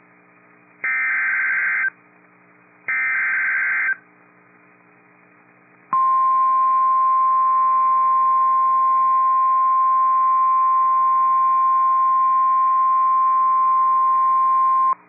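NOAA Weather Radio emergency alert signal. The last two of the three digital SAME header bursts, each about a second long, are followed by a short pause and then the long steady 1050 Hz warning alarm tone lasting about nine seconds. The tone signals that a warning-level alert, here a severe thunderstorm warning, is about to be read.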